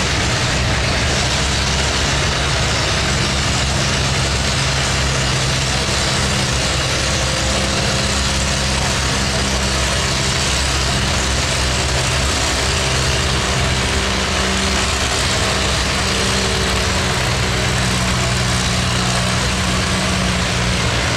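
Tractor engine idling steadily, its note shifting slightly now and then.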